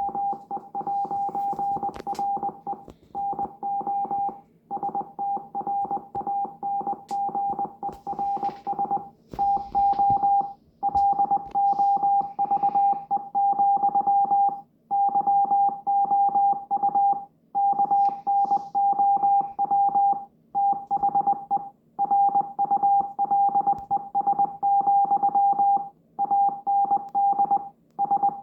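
Morse code: one steady beep tone keyed rapidly on and off in dots and dashes, with brief pauses between groups every few seconds.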